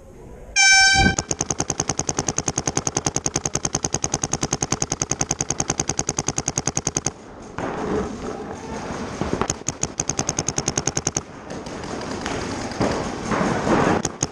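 A short horn blast about half a second in, then a paintball marker firing rapid strings of shots, about ten a second, for several seconds. The firing stops briefly a little after halfway and picks up again in shorter strings.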